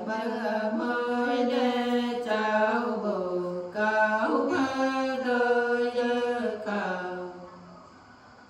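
Unaccompanied women's voices singing a slow Nùng folk song, long held notes sliding from one pitch to the next. The singing ends about seven seconds in.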